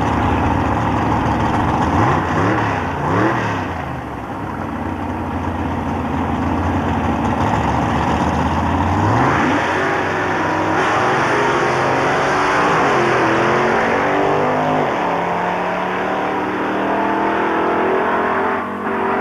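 Two Pro Gas drag racing cars' engines revving up and down at the starting line, then launching about nine and a half seconds in and accelerating hard away down the strip.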